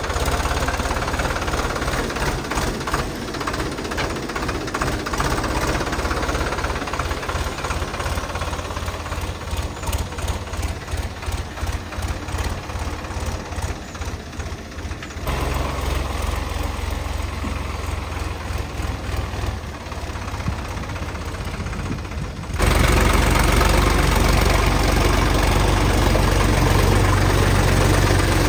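Sonalika Mileage Master 39 tractor's diesel engine running as the tractor works through wet mud, with a rapid knocking pulse. The sound jumps abruptly louder about two-thirds of the way in.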